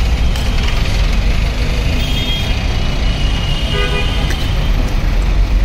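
Busy road traffic running steadily with a low rumble, and a vehicle horn tooting briefly about two-thirds of the way in.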